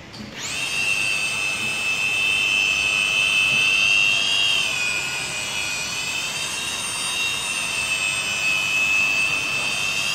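Handheld electric rotary polisher with a felt pad switched on, spinning up within half a second, then running with a steady high-pitched motor whine as it buffs glass. The pitch dips slightly about five seconds in and then holds.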